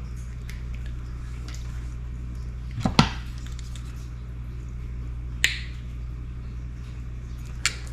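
Wire cutters or strippers snipping and stripping a length of hookup wire: three sharp clicks, a double one about three seconds in, another about halfway through and a last one near the end, over a steady low hum.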